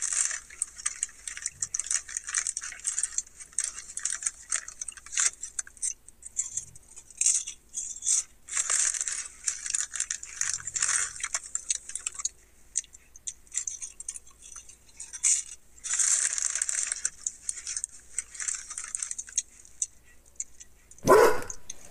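Foil potato-chip bag crinkling and crackling in irregular bursts as a hand rummages in it for chips. A dog barks once, loudly, right at the end.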